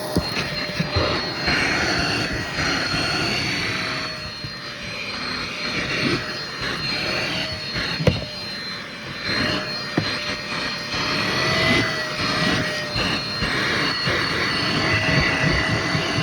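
Vacuum cleaner with a nozzle attachment running steadily, a high motor whine over a rushing hiss, as it sucks up debris from a car's floor where the seat has been taken out. Scattered clicks and knocks come from the nozzle and debris as it works over the floor.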